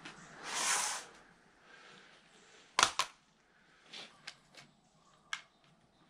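Electrical cable being worked through conduit by hand: a short scraping rush about half a second in, then two sharp clicks close together near the middle and a few lighter taps.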